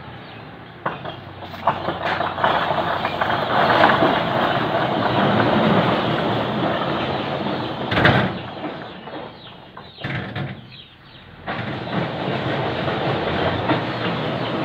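A plastic strip rustling and crinkling as it is pulled tight and wrapped by hand around a pipe joint. The noise is dense and crackly, builds after about a second, fades out about ten seconds in, and starts again abruptly a second and a half later.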